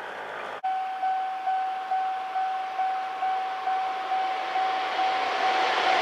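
Japanese railway level-crossing warning bell ringing steadily at about two strokes a second, each stroke dying away. It cuts in suddenly about half a second in. Near the end the noise of an approaching Sanyo Electric Railway train rises beneath it.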